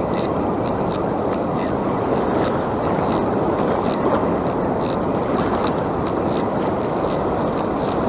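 Steady rush of surf and wind, with faint scattered light ticks from a spinning reel being cranked to bring in a hooked fish.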